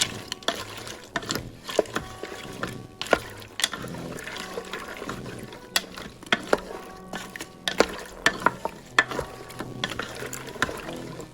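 Spoon stirring broth and frozen vegetables in an Instant Pot's stainless steel inner pot: liquid sloshing, broken by irregular clicks and knocks of the spoon and vegetables against the pot.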